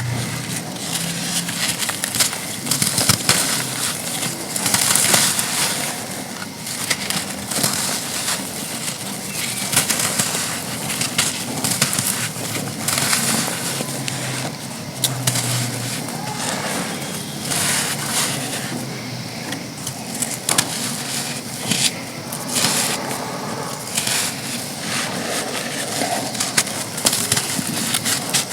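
Chunks of dried sand being crushed and crumbled, an irregular run of crisp crunches and crackles.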